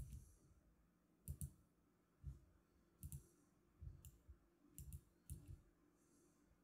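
About ten faint clicks of a computer mouse, spaced irregularly and some in quick pairs.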